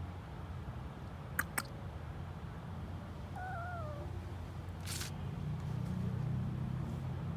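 A cat gives one short, wavering meow about halfway through. Before it come two sharp clicks, and after it a brief hiss, all over a steady low hum.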